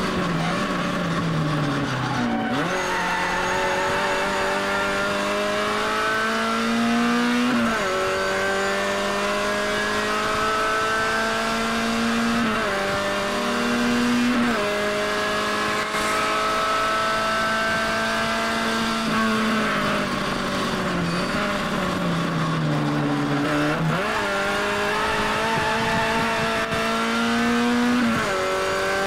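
Classic Mini race car's four-cylinder engine heard from inside the car under hard racing. The pitch climbs through each gear and drops sharply at each shift. Twice it falls away as the car slows, then jumps back up on a downshift.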